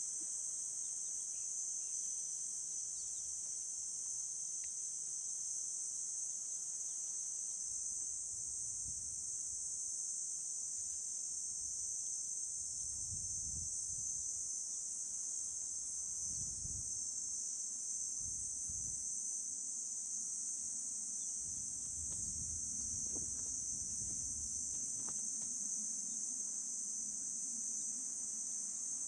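Steady, high-pitched chorus of insects trilling, with occasional low rumbling in the background.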